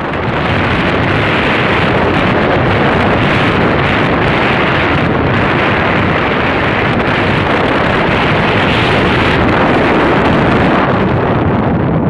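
Steady rush of wind buffeting the microphone on a moving motorcycle, with the motorcycle's running noise underneath.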